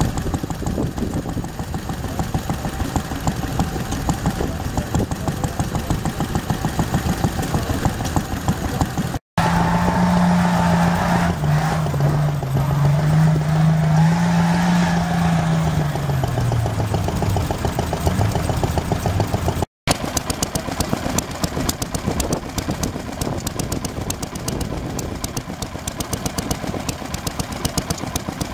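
Small vintage stationary engines running steadily, one after another: one driving a dynamo, one a belt-driven water pump, then a Lister engine. In the middle part a low, wavering tone sounds over the engine's rapid even beat.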